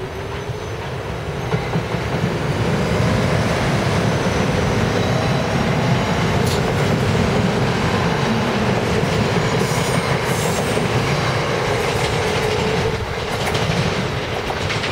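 SEPTA Silverliner IV electric multiple-unit commuter train passing close by: a steady rumble and clatter of wheels over the rails, with a faint rising whine and brief high-pitched wheel squeals near the middle.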